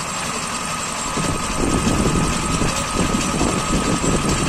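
Small engine-driven concrete cutting saw running steadily, with a constant whine over the engine noise. From about a second in the sound gets louder.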